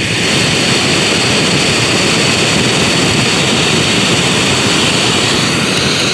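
Canister gas camping stove burning at full flame: the burner's steady, loud roaring hiss just after it has been lit.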